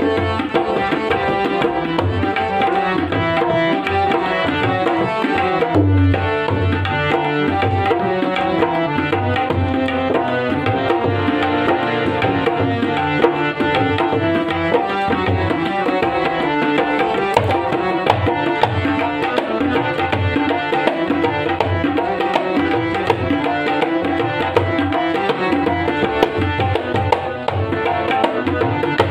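Instrumental break in a Bhojpuri song: tabla playing a steady, busy rhythm with deep bass strokes, over held melodic accompaniment notes.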